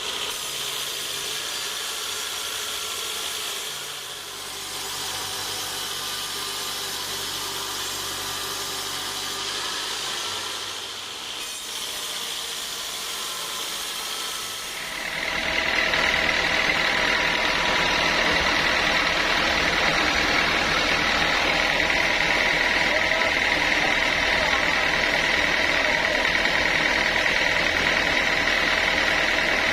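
Sawmill machinery running steadily. About halfway through it gets louder, with a strong, steady high whine added, as the saw starts cutting or works harder.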